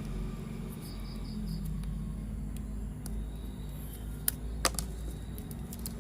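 A small battery toy motor humming steadily, with a few light ticks and two sharp plastic clicks about four and a half seconds in.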